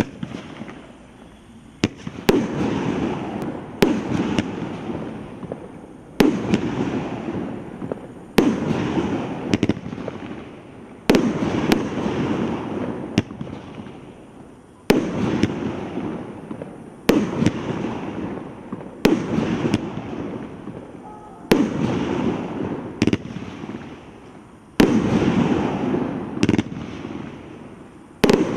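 A consumer fireworks cake of 18 shots and 500 g firing its tubes one after another, roughly every two seconds, sometimes two in quick succession. Each shot is a sharp report, followed by a noisy burst tail that fades over a second or two before the next.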